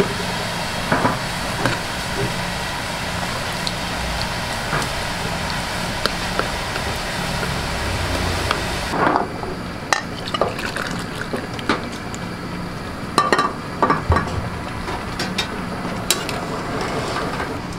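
Pan of tteokbokki broth boiling with a steady hiss as a ladle stirs in the gochujang sauce. About halfway the hiss drops away suddenly, leaving scattered clinks and knocks of the ladle.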